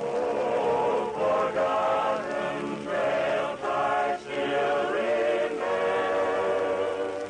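A western vocal group singing a slow song in close harmony, the voices coming in strongly at the start and moving phrase by phrase.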